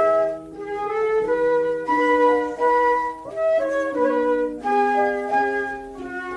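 Instrumental break in a children's song: a melody of held notes stepping up and down over a light accompaniment, with no singing.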